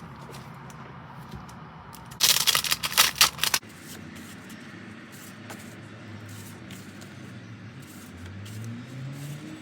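Packaging being handled: a loud burst of crinkling and rustling about two seconds in, lasting just over a second.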